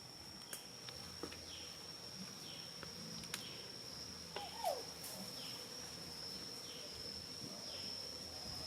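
Steady high-pitched insect drone, with a short falling call repeating about once a second and a few scattered clicks. A brief squeak about halfway through is the loudest sound.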